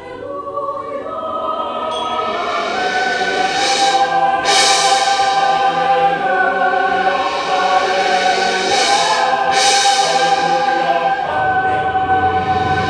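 Mixed choir of men's and women's voices singing sustained chords that swell from soft to full over the first few seconds, then hold loud. Two pairs of bright hissing accents cut through, and the chord shifts a little before the end.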